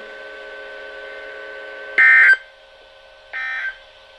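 NOAA Weather Radio broadcast closing a Required Weekly Test with SAME end-of-message data bursts: a faint steady hum, then about two seconds in a short, loud, buzzy digital burst, and about a second later a second, quieter burst.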